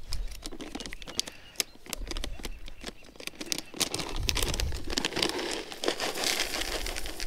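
Foil bait bag crinkling as it is handled and folded, with many small ticks of trout pellets pattering into a plastic bucket.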